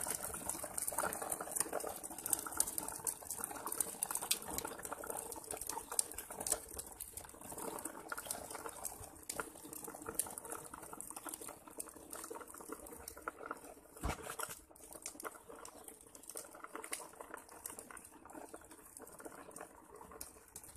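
Rustling and many small clicks from a handheld phone being carried while walking, over a steady high hiss, with one louder knock about two-thirds of the way through.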